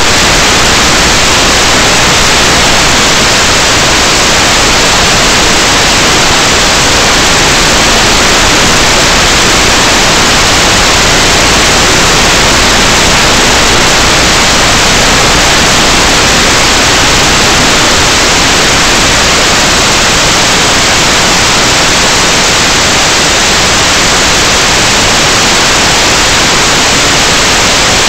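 Steady loud static hiss from the empty audio channel of an analog FPV video link, with no motor or other sound standing out.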